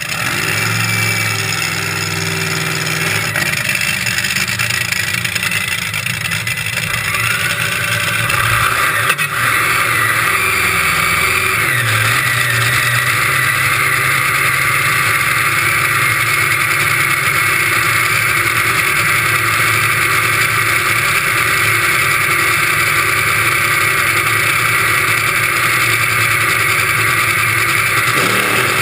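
Top Fuel dragster's supercharged V8 firing up right at the start, then running loud and steady at idle, heard from a camera mounted on the car. Its pitch shifts a few times about a quarter of the way in.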